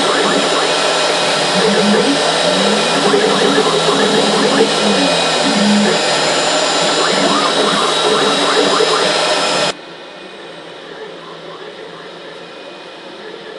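CNC wood router running, its spindle cutting into a foam block, with motor tones that shift in pitch as the axes move. About ten seconds in the sound drops abruptly to a much quieter steady machine hum.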